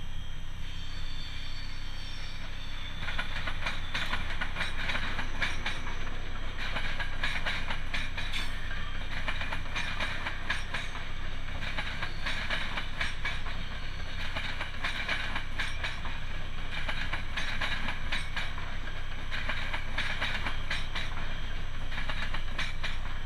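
Electric-hauled passenger train passing close by, led by an ÖBB Taurus locomotive. Under a steady low rumble, the coaches' wheels clatter over rail joints and points, with a group of clicks about every two and a half seconds as each bogie passes.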